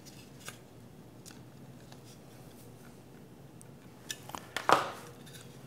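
Light clicks and taps of a long hex key working small brass threaded guides into a 3D-printed carbon-fibre nylon part, with a few sharper clicks about four to five seconds in.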